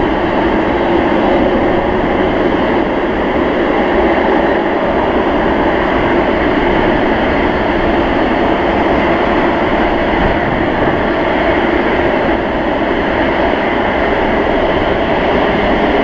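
Four Rolls-Royce Trent 900 jet engines of an Airbus A380 running at taxi power as the airliner turns onto the runway: a loud, steady jet noise that does not rise or fall.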